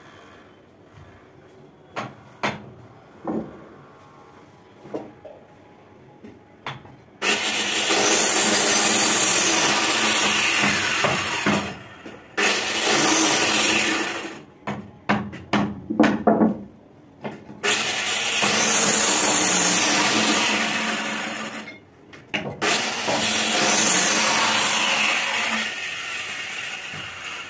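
Electric hand planer cutting a wooden window-frame member in four runs of a few seconds each; the motor's pitch dips under load and recovers. Before the first run, about seven seconds in, and in the gaps between runs there are scattered knocks and taps of wood being handled.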